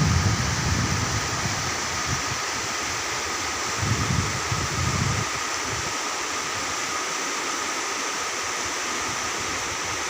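Steady rush of river water, with faint steady high tones over it and low wind buffeting on the microphone in the first second and again about four seconds in.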